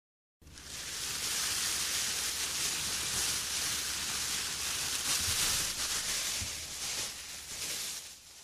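Black plastic bag rustling as it is lifted and shaken out, a dense hiss-like crackle. It starts abruptly and fades near the end.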